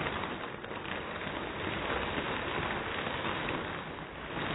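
A large bag of tortilla chips being crushed and twisted in the hands and bitten: continuous crinkling of the bag and crackling of chips breaking inside.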